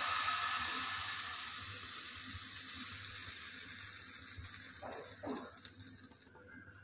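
Pancake batter sizzling in a hot non-stick frying pan just after it is ladled in: a steady hiss that slowly fades and then cuts off suddenly near the end.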